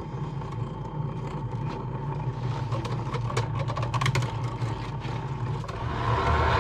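Bambu Lab AMS filament unit loading a newly inserted spool and setting itself up: a steady motor hum with scattered small clicks, then a louder motor whir that rises near the end.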